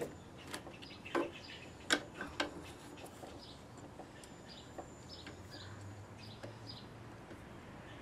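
A few sharp metallic clicks, four in the first two and a half seconds and fainter ones after, as a 7/16 wrench works the nut on a push mower's pull-start handle mount, with birds chirping in the background.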